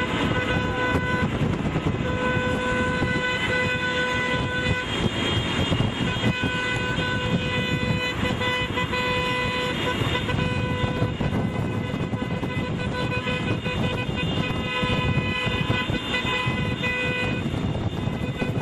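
Car horns honking in long, held blasts broken by short pauses: celebratory convoy honking. There is steady road and wind noise from a moving car underneath.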